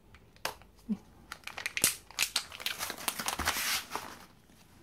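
Foil wrapper of a Kinder Joy egg crinkling and tearing as it is peeled off by hand: a dense run of sharp crackles that stops about a second before the end.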